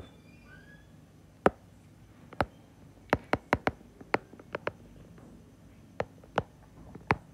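Sharp, irregular clicks of a stylus tapping on a tablet while handwriting, about a dozen, some coming in quick runs.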